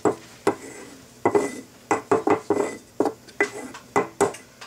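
Wooden spoon stirring thick sourdough starter in a glass jar, mixing in fresh flour and water. The spoon knocks against the glass a dozen or so times in quick, irregular strokes, each knock with a short glassy ring.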